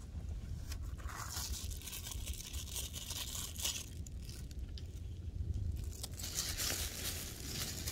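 Plastic wrapper of a napkin packet being torn open and crinkled, in two stretches of rustling, about a second in and again about six seconds in, over a steady low rumble.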